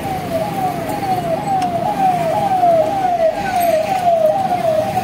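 Emergency-vehicle siren sounding a fast repeating yelp: a falling sweep about two and a half times a second, louder in the middle, over street traffic noise.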